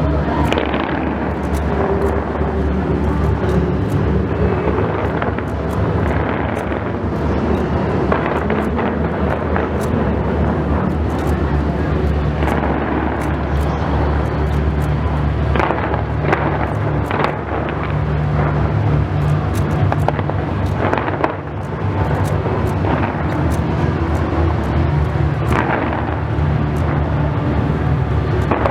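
Fireworks bursting in quick succession, many sharp bangs and crackles, over a constant low rumble.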